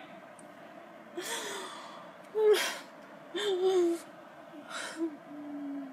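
A woman crying: about four gasping, breathy sobs with short wavering whimpers, the loudest about two and a half seconds in, then a longer, steadier whimper near the end.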